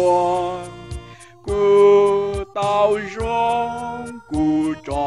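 A hymn sung in Hmong, with held, gliding notes in phrases over a backing track that has a steady beat of about three ticks a second.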